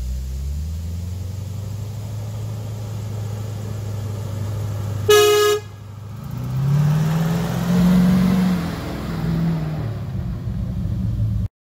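1969 International Harvester Loadstar 1700 truck engine running steadily as it approaches; about five seconds in the truck's horn gives one short toot, the loudest sound. The engine note then rises and falls as the truck pulls past, and the sound cuts off suddenly just before the end.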